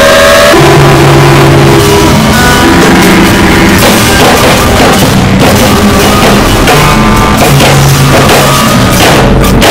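Harsh noise music: a very loud, dense wall of distorted noise that fills the whole range, with held low droning notes that shift every second or so.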